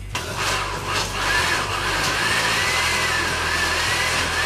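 Countertop blender switched on and running, puréeing a paste of peppers and spices. Its motor whine wavers and slowly rises in pitch, and the sound grows louder about a second in.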